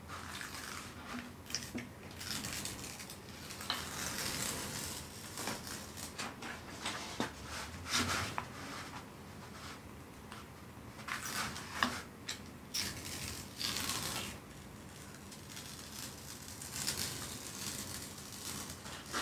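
Plastic protective film on a diamond painting canvas rustling and crackling in irregular bursts, with small sharp clicks, as the rolled canvas is unrolled and flattened by hand.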